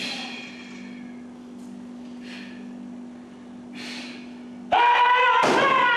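Short, forceful breaths over a steady low hum, then a sudden loud, high, drawn-out shout about three-quarters through as a taekwondo board break is made. Clapping starts a moment after the shout.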